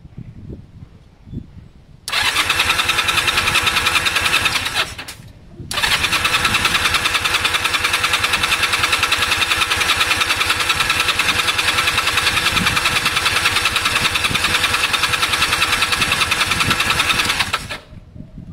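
Honda CB250 parallel-twin engine cranked over on the starter with both spark plugs removed, during a compression test at wide-open throttle. There is a short crank of about three seconds, a brief pause, then a long crank of about twelve seconds that stops near the end, with a fast, even pulsing throughout. The gauge reads only about 60 on this cylinder, far below the 150 or more he expects, which he calls bad and a sign the engine needs rebuilding.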